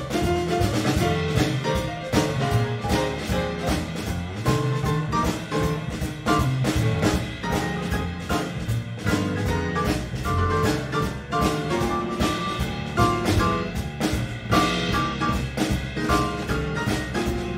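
Live small-group jazz: grand piano playing short chords and single notes over upright bass and a drum kit with steady cymbal strokes.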